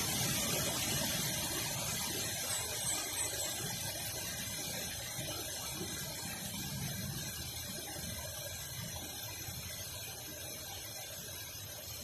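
Steady rush of a small waterfall and flowing stream, an unbroken hiss that slowly grows quieter.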